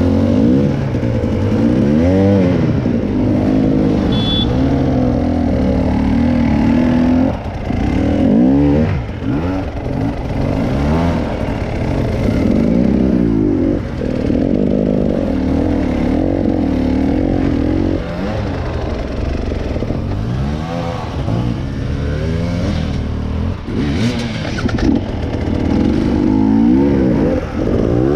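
An off-road vehicle's engine revving up and easing off again and again, the pitch rising and falling every second or two.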